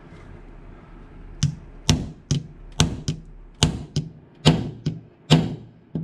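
Small brass hammer striking a pin punch against a tight drift pin in an AUG receiver: about ten sharp taps, roughly two a second, starting about a second and a half in. The pin is stuck and takes good hard whacks to start moving.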